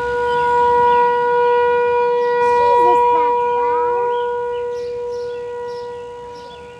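Outdoor tornado sirens sounding a steady, unbroken tone during a siren test. The tone grows louder over the first three seconds and then slowly fades.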